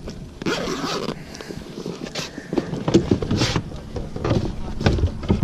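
Irregular knocks, taps and rustling as fishing gear, a landing net among it, is handled in an inflatable boat.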